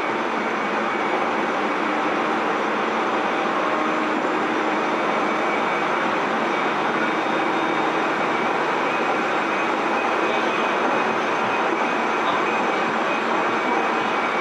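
Running noise of a Tobu 30000 series electric train, heard inside motor car MoHa 33409: a steady rush and rumble of the train travelling along the line at speed.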